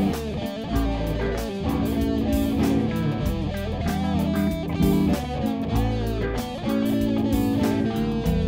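Instrumental music led by electric guitar, with bass and a steady beat.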